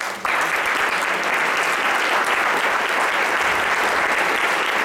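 Audience applauding: clapping breaks out abruptly a moment in and holds steady.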